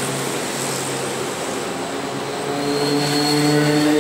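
Porsche Cayenne SUV pulling away from the curb, its engine note steady at first and then rising in pitch as it accelerates, starting about two and a half seconds in, over a hum of street traffic.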